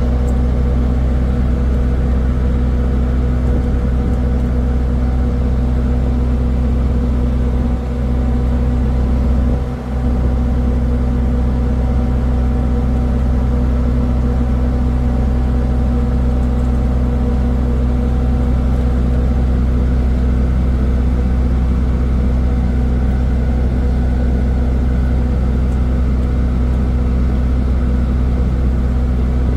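A ship's engine running steadily: a loud, even low hum with a droning pitch that does not change.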